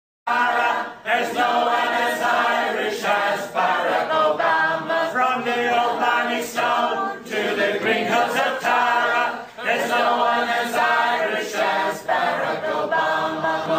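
Voices singing together unaccompanied, an Irish-style ballad, starting abruptly after a moment of dead silence.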